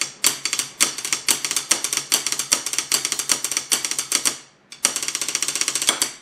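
Pair of wooden drumsticks playing a fast flam drum rudiment (flam triplets with a diddle) on an aluminium lure mold: rapid sharp stick clicks, with a brief break about four and a half seconds in before another quick run of strokes.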